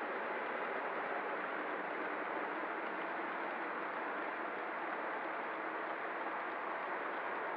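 Steady rolling noise of O scale model trains running on metal three-rail track, an even whir with no change.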